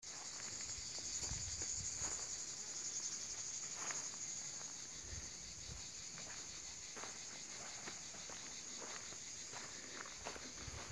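Steady high-pitched insect chorus with a fine, fast pulsing texture, with a few soft low thumps underneath.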